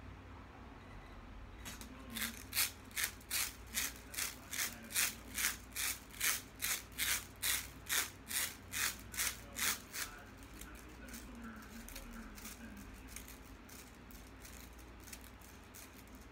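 Plastic rainbow Slinky shaken back and forth between two hands, its coils clacking together in a quick, even rhythm of about three clacks a second. The clacking starts about two seconds in and stops about ten seconds in. Quieter handling of the coils follows.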